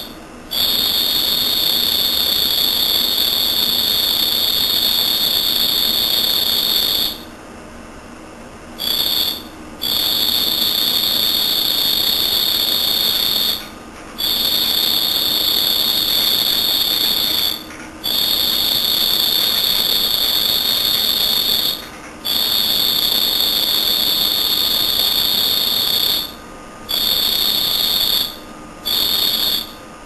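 Cricket singing a loud, steady, high-pitched trill in stretches of a few seconds, broken by short pauses, one of them longer.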